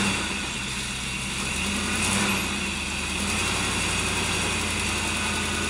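Rock-crawling K5 truggy's engine running at low revs while the rig works up a rock ledge, swelling briefly at the start and again about two seconds in as the throttle is bumped.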